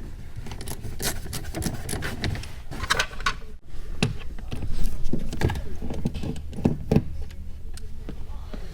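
Hand tools and loose screws clicking and rattling, with irregular knocks, as the dashboard console trim is worked loose.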